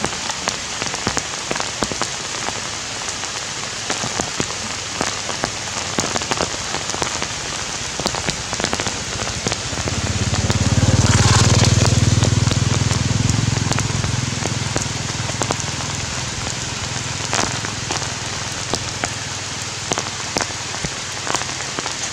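Steady heavy rain falling, a dense hiss with many small drop clicks. About ten seconds in, a low rumble swells up, becomes the loudest sound, and fades away over the next few seconds.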